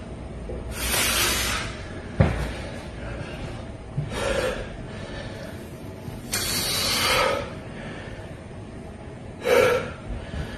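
A bodybuilder breathing hard and forcefully through his mouth while straining to hold flexing poses, four heavy breaths a few seconds apart. A single sharp click comes a little after the first breath.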